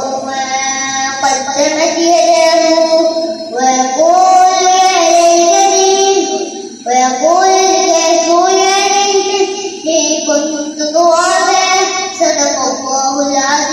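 A young boy's voice chanting Quranic recitation into a microphone, in drawn-out melodic phrases of a few seconds each with short pauses for breath between them.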